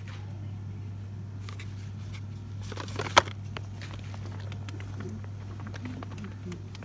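Boxed soap bars being handled and pulled from a wire store shelf: scattered small clicks and rustles, with one sharp knock about three seconds in, over a steady low hum.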